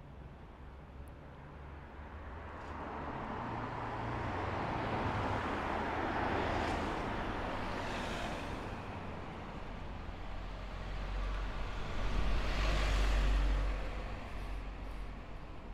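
Road traffic passing close by on a city street. Tyre and engine noise swells and fades as one vehicle goes by. A second, heavier-sounding vehicle with a deep low rumble passes about twelve seconds in.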